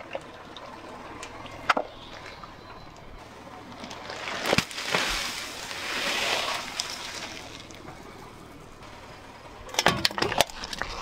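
Car tyre rolling over and crushing small objects one after another. A sharp snap comes about two seconds in, and a sealed bag of small plastic beads bursts around the middle, the beads pouring out in a long spilling hiss. A quick run of cracks near the end is a small can being flattened under the tyre.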